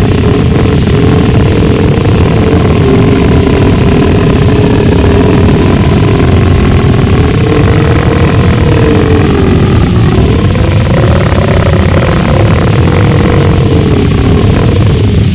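Gorenoise: a loud, unbroken wall of heavily distorted, rumbling low noise with a wavering drone on top that dips and then swells in pitch about two thirds of the way through.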